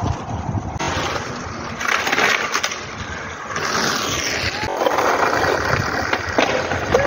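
Skateboard wheels rolling on rough asphalt, with a sharp clack of the board about six seconds in as the rider jumps off it on a trick.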